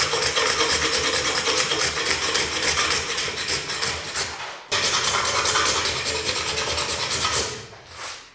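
A curved carving blade shaving olive wood by hand in rapid, repeated scraping strokes, with chips flying. The sound cuts out for an instant a little past halfway, then resumes and fades out near the end.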